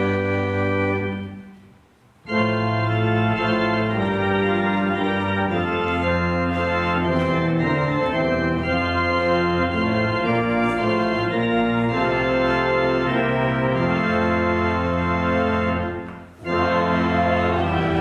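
Church organ, newly rebuilt, playing full sustained chords. The sound dies away about a second in, and after a short pause the chords start again. There is another brief break near the end.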